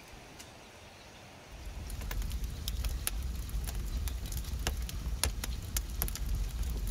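Dry brushwood catching fire in a tandoor pit, with irregular sharp crackles and pops over a low rumble, starting about a second and a half in.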